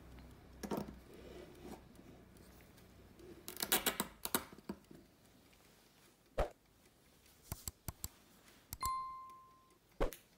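Light clicks and knocks as a pocket watch is handled and set into a clear acrylic stand, with a busy cluster of clicks about four seconds in. Near the end comes a short, clear bell-like ding, followed by one more click.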